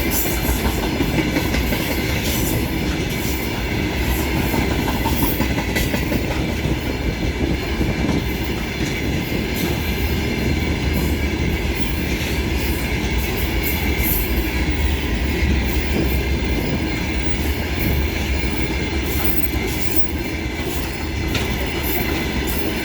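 Freight train wagons rolling past at speed, a steady rumble with repeated clicks of wheels passing over rail joints.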